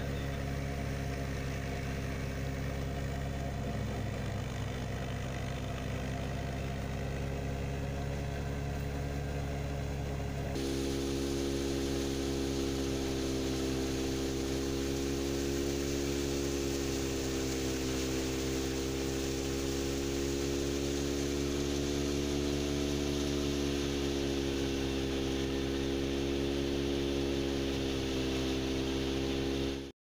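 Tractor-driven wheat thresher running steadily, the tractor engine and spinning threshing drum making a constant hum. About a third of the way in the sound changes abruptly to a brighter, hissier hum whose pitch wavers slowly. It cuts off suddenly at the end.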